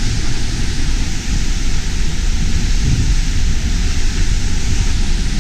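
South Falls, a waterfall a couple hundred feet high, pouring down in a loud, steady rush of noise, with wind buffeting the microphone.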